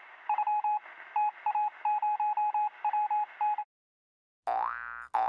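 Sound-effect of Morse-code-style beeps: one pitch in uneven short and long pulses over a hiss of radio static, stopping about three and a half seconds in. After a short gap, a cartoon boing with a rising pitch starts near the end.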